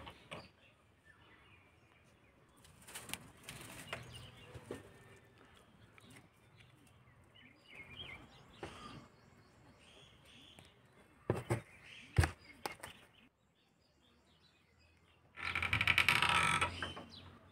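Birds chirp faintly in the background with a few scattered rustles and two sharp knocks. Near the end comes a loud crackling rustle lasting about two seconds as a bundle of dry twigs is lifted and handled.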